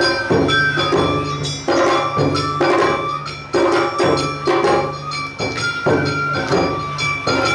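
Awa odori festival music played by a narimono band: a bamboo flute melody over taiko drum strokes and the clang of a small hand gong, in a steady march rhythm.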